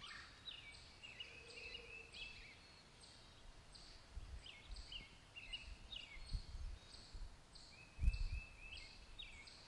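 Faint birdsong ambience: repeated short chirps and little trills, each dropping slightly in pitch. A few dull low thumps sound under it, the loudest about eight seconds in.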